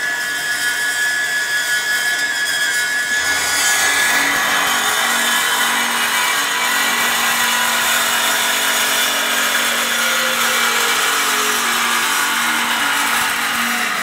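Hyd-Mech S20 horizontal metal-cutting bandsaw running, its blade meeting the workpiece about three seconds in and then cutting steadily through the metal stock with a low steady hum under the cutting noise.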